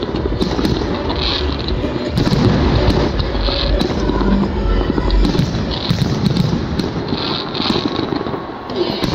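Fireworks going off in quick succession: deep booms from bursting shells, with sharp cracks and crackling throughout.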